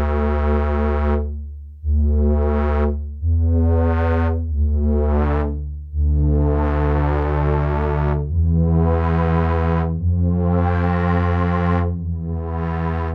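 Novation Circuit Tracks synth engine playing a preset: held keyboard chords over a deep bass note, changing to a new chord every one to two seconds. Each chord is bright as it starts and grows duller as it holds.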